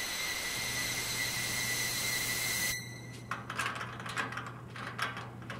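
A steady hiss with a thin high whistle-like tone, which cuts off suddenly a little under three seconds in. Then comes rapid, irregular metallic clicking: a metal school locker's built-in combination dial being turned.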